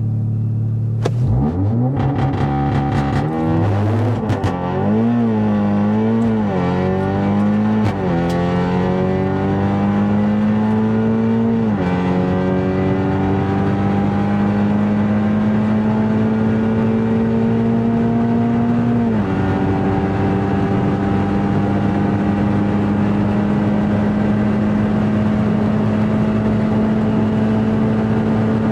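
A car engine launching off the line and accelerating hard through the gears on a drag run. For the first several seconds the revs rise and fall unevenly; then they climb in long steady pulls, dropping sharply at gear changes about 8, 12 and 19 seconds in.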